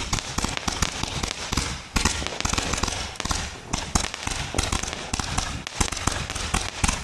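Fireworks going off in a rapid, continuous stream of sharp pops and crackles, with a brief lull about two seconds in.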